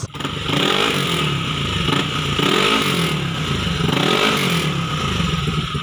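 Yamaha Aerox 155 scooter's single-cylinder engine running through an aftermarket WF Pipe V2 exhaust, its pitch rising and falling several times as the throttle is worked.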